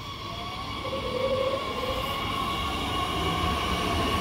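DB Regio class 442 (Bombardier Talent 2) electric multiple unit approaching and passing close along the platform: a rumble of wheels on rail with the whine of its electric traction drive, one tone gliding upward. It grows steadily louder as the train nears.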